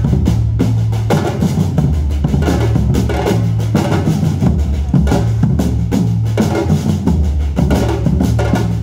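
Batucada drum ensemble playing loud and fast: deep bass drums pounding under rapid snare drum strokes in a continuous driving rhythm.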